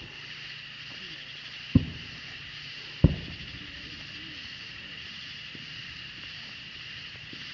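Two firework bangs about a second and a half apart, sharp and loud with a short rumbling tail, over a steady high chirring of night insects.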